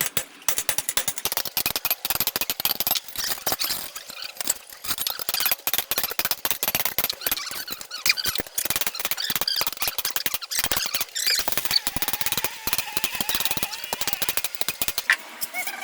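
Metalwork on a car's catalytic converter: dense, irregular crackling and sharp clicks run on without a break.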